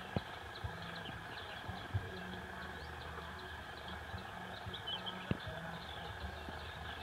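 Water buffalo calf grazing, a few sharp snaps as it tears grass, with small birds chirping over a low steady hum.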